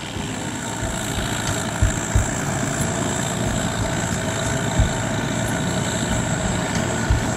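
Longtail boat's open-mounted engine running steadily as the boat motors past, driving its propeller on a long shaft.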